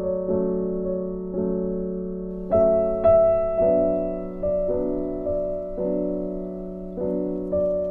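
Background music: soft piano chords, struck about once or twice a second and left to ring.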